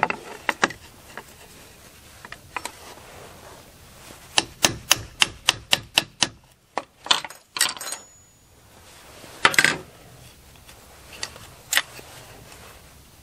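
Hammer tapping out the pin in a Husqvarna 281 chainsaw's chain-brake linkage, metal on metal. The sharp taps come singly at first, then in a quick run of about a dozen, about three a second, followed by one louder strike.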